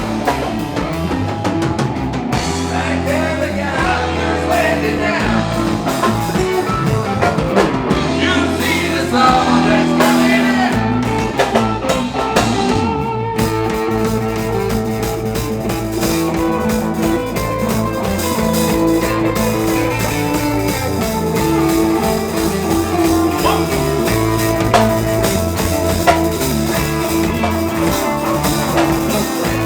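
Live rock band playing: drum kit, bass guitar and electric guitars together at full level, with the sound of the band changing about thirteen seconds in.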